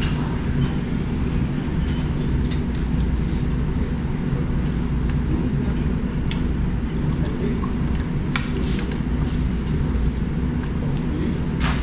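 A steady low rumble, with a few light, sharp clinks of chopsticks and spoons against plates and bowls.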